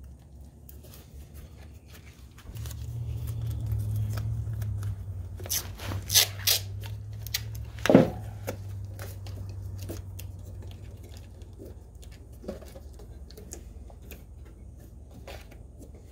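Painter's tape being handled and pressed into holes in a car's firewall: scattered light clicks and rustles, a few sharp clicks and one loud thump about eight seconds in. A low steady hum comes in about two and a half seconds in.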